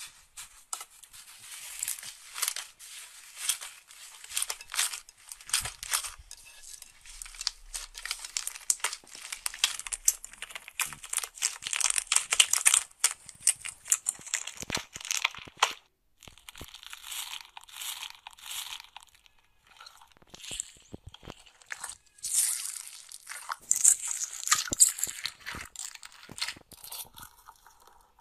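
Hands squeezing and pulling apart thick orange slime, with a dense run of crackling, tearing clicks. About halfway through, the crackling turns crunchier as a hand pushes into blue slime packed with small foam beads.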